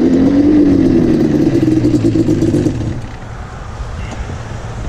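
Yamaha Banshee 350's twin-cylinder two-stroke engine running, its pitch rising and falling in a short rev, then dropping to a quieter, steadier lower note about three seconds in.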